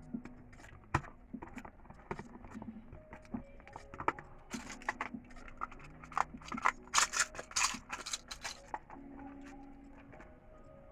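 Rummaging through small items on a nail table: a run of clicks and light knocks as things are picked up and put down, busiest from about four and a half to eight and a half seconds in.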